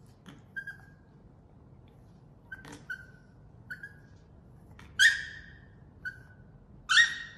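Pomeranian dog whining in several short, high whimpers, with two loud, sharp yips about five and seven seconds in.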